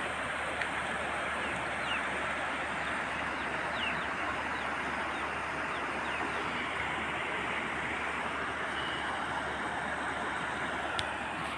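Floodwater rushing steadily, an even hiss with no breaks.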